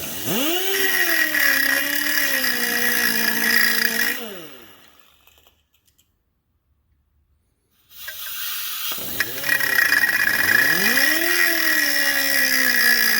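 Cutoff wheel on an electric grinder spinning up and cutting diagonal grooves into a journal of an old Mopar 440 camshaft, its pitch sagging as the wheel bites into the steel. The grooves turn the old cam into a scraper for a tight rear cam bearing. It winds down about four seconds in and starts cutting again at about eight seconds.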